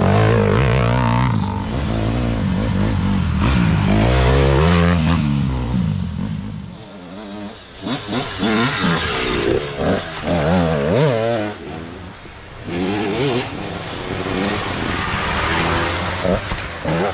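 Dirt bike engines revving up and down, the pitch rising and falling with throttle and gear changes. Loudest in the first six seconds while a bike runs right alongside, then quieter and rising again near the end.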